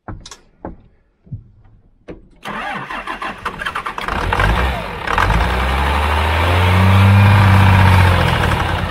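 12-valve Cummins inline-six diesel on a truck that sat for years, firing a few isolated times and then catching about two and a half seconds in. It runs on a feathered throttle to keep it lit, revving up and growing louder, and fades out near the end.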